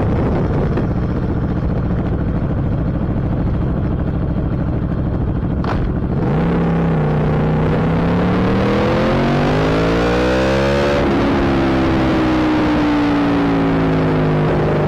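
Aprilia Tuono V4 Factory's V4 engine running at low revs for about six seconds, then revving up steadily under acceleration. About eleven seconds in, an upshift drops the pitch, and the engine pulls on with a slowly falling tone.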